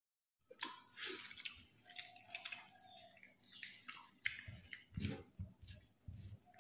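Soft, wet squishing and smacking clicks of fingers kneading and mixing rice with curry on a banana leaf, with eating and chewing noises. It begins about half a second in.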